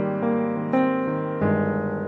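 Background piano music: a slow, gentle melody of sustained notes.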